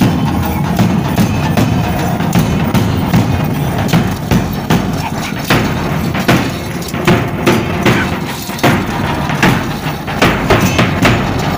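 Large bass drums beating a repeated dance rhythm for a danza apache troupe, a steady run of sharp, hard strokes.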